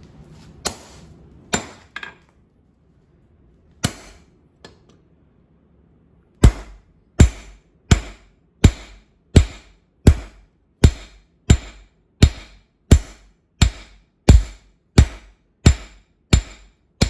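Hand hammer striking hot steel coil spring on an anvil, setting down a pad on the bar's end with half-on, half-off blows at the anvil's edge. A few scattered blows come first, then after a pause of about two seconds a steady run of blows, about one and a half a second.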